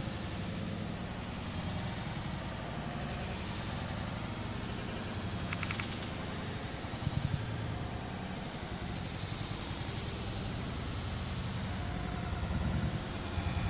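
Steady rumble of city traffic, with a vehicle passing louder about seven seconds in and again near the end.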